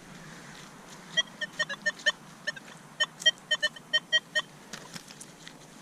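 Metal detector beeping: about a dozen short, same-pitched electronic beeps in an uneven run, from about a second in to near the end, as it signals a buried metal target.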